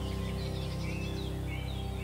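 Soft background music of steady sustained tones, with birdsong chirping over it.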